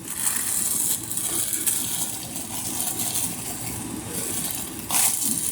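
Crinkling and rustling of plastic packaging and swimsuit fabric being handled as a new item is unwrapped, uneven, with a few sharper crackles near the end.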